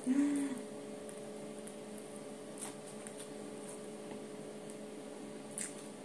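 Steady low electrical hum in the room, with a short hummed voice sound right at the start. Faint soft clicks and squishes come from fingers picking food off a plate during hand-eating.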